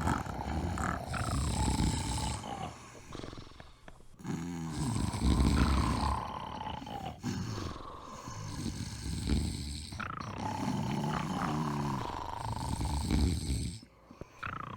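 Snoring: loud snores recurring every two to four seconds, several ending in a whistle that falls in pitch.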